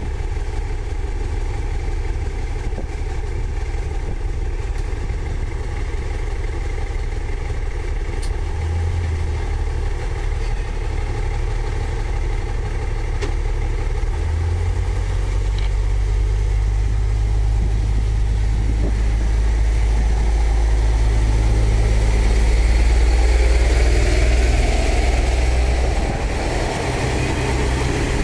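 Diesel engines of a KiHa 37 and KiHa 38 railcar pair idling at the platform, then stepping up in pitch and loudness as the train pulls away. The engine note builds in stages, peaks a few seconds before the end, and drops as the cars run past close by.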